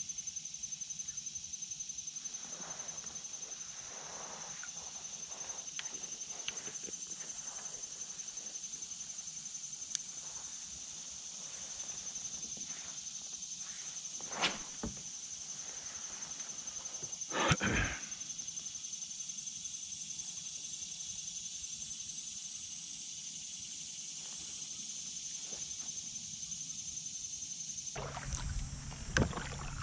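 Steady high-pitched drone of insects calling from the shore, with a few faint taps and two sharp knocks around the kayak about halfway through. Near the end a lower rush of paddling and wind on the microphone comes in.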